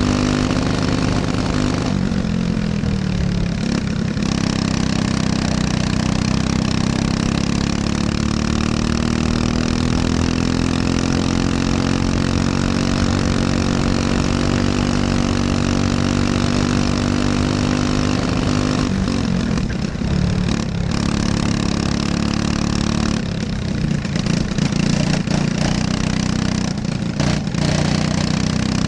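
Briggs & Stratton LO206 single-cylinder four-stroke kart engine running hard at racing speed: its revs drop about two seconds in, climb slowly for a long stretch, then dip twice more before rising again near the end.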